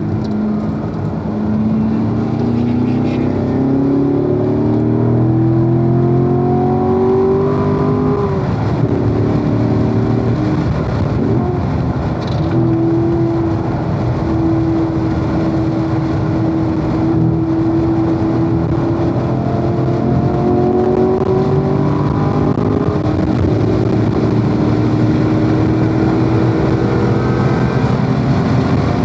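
Corvette V8 engine at speed on a race track, its pitch climbing under acceleration, dropping sharply at a gear change about eight seconds in, holding steady for a while, then climbing again near the end, over constant wind and tyre noise.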